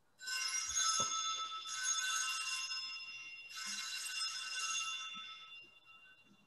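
Sanctus bells, a cluster of small altar bells, rung three times at the elevation of the chalice. Each ring is a shimmering jingle of many high tones, and the last fades away near the end.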